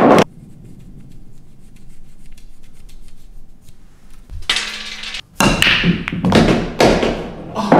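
Pool cue and balls being handled at a pool table: light taps and knocks, with a short scrape of chalk on the cue tip about halfway, followed by louder knocks and rubbing noise as the break shot is lined up.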